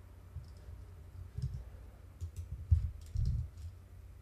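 A few irregular clicks and light taps at a computer, the loudest about two thirds of the way in.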